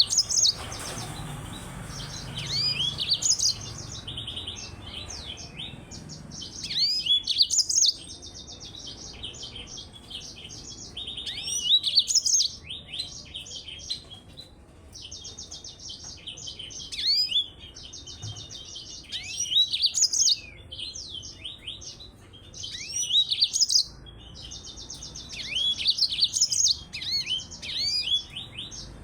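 Yellow-fronted canary (Mozambique canary) singing: loud bursts of rapid buzzy trills mixed with quick slurred whistles, a new phrase every few seconds with short pauses between.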